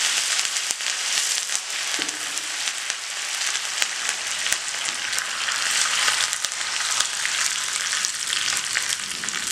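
Fresh curry leaves and dried red chillies sizzling in hot oil in a small steel pan during a tempering (tadka): a steady hiss with scattered sharp crackles.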